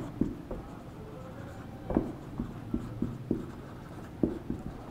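Marker pen writing on a whiteboard: short scratchy strokes with light taps of the tip against the board.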